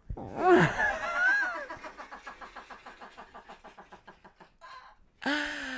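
A man's comic vocal noise close to the microphone: a falling voiced cry, then a long run of quick creaky pulses, about seven a second, fading away like a drawn-out snicker. Near the end a held voiced 'aah' begins.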